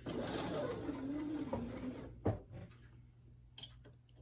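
Bernina B790 Plus sewing machine stitching slowly for about two seconds, its motor pitch wavering and dropping, then stopping, followed by a click.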